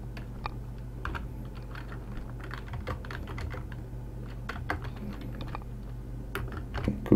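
Computer keyboard keys clicking in quick, irregular bursts as code is typed.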